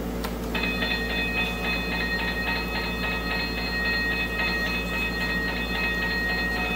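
Battery-operated G-scale toy railroad crossing signal sounding its crossing bell: a click, then from about half a second in a rapid, even ding-ding-ding that keeps going, as the signal is activated with its lights flashing and arms coming down.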